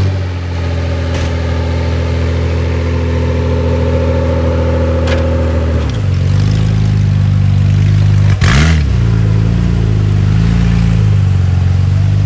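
Off-road 4x4's engine running hard under throttle as it drives through mud, holding steady revs. About six seconds in the engine note changes, and a little past eight seconds the revs drop briefly and swoop back up.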